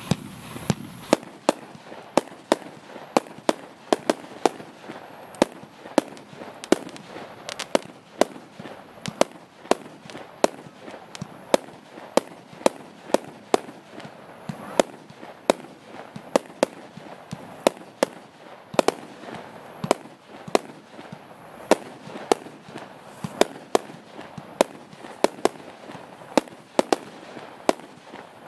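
Consumer firework cake (battery) firing a long, rapid sequence of shots: sharp bangs at roughly two a second, some louder than others.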